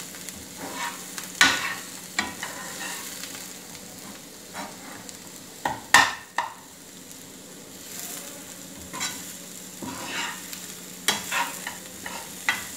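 Metal ladle stirring and scraping onions and spice powders frying in a black wok: irregular scraping strokes over a steady sizzle, the loudest stroke about six seconds in.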